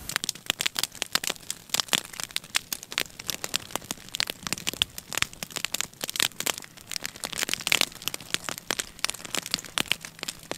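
Dry grass burning across a field, crackling with many irregular pops and snaps.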